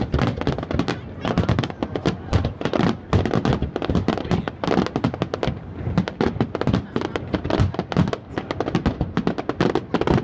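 Aerial fireworks going off in a rapid barrage: many sharp bangs in quick succession, several a second, with crackling.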